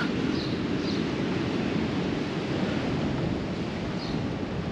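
Steady rushing of wind and sea surf along a beachfront, with wind buffeting the microphone.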